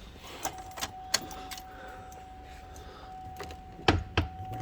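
Keys jangling and a series of sharp clicks, with two loud ones close together near the end, over a steady high tone that comes in about half a second in.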